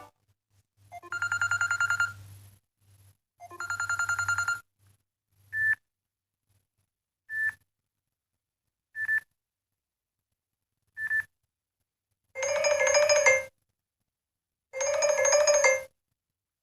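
Samsung Galaxy S8 ringtones playing: two rapid trilling rings about two and a half seconds apart, then four short single beeps about two seconds apart, then two longer warbling tones.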